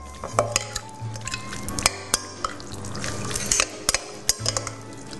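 A utensil clicking and scraping against a mixing bowl as spicy tuna poke is mixed lightly, many short irregular clinks, over background music.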